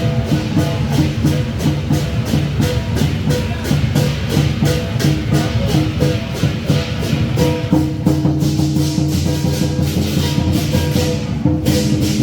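Lion dance percussion band playing a fast, steady beat: cymbal and drum strikes about four times a second, with ringing pitched tones underneath. The high end drops out briefly near the end before the strikes resume.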